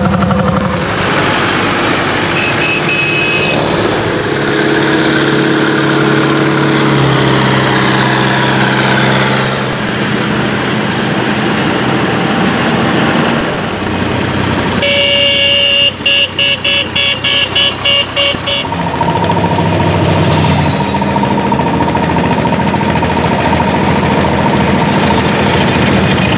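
Engines of vintage farm tractors running as they drive past one after another. About halfway through, a horn sounds, first held for a moment, then in a rapid string of about eight short toots lasting a few seconds.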